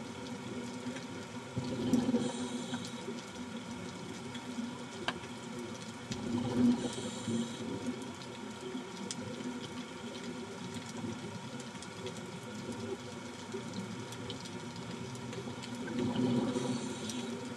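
Underwater sound of a scuba diver breathing: bursts of exhaled bubbles from the regulator come three times, over a steady hum.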